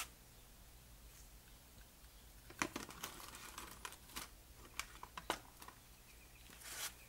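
Light clicks and taps of small carburetor parts being handled and set down, scattered through the second half, with a short rustle near the end.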